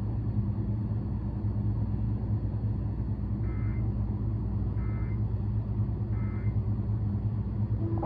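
A steady low mechanical hum, with three short electronic beeps about a second and a half apart in the middle.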